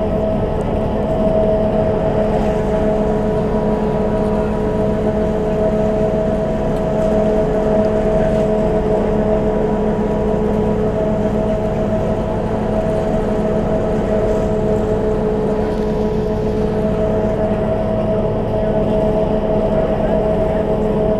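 A 1997 Poma high-speed detachable quad chairlift terminal running: a steady mechanical whine of several held tones over a low hum. The uploader takes it for the lift running at full line speed, 1100 feet per minute.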